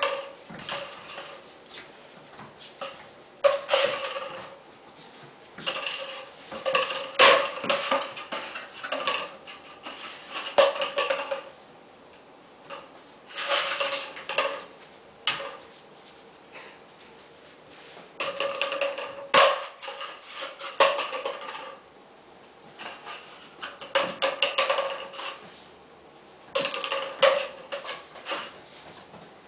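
Cardboard paper towel tube knocking and rolling on a tile floor as a puppy pounces on it and bats it about. The clattering comes in repeated bursts of a second or more, with quiet gaps between them.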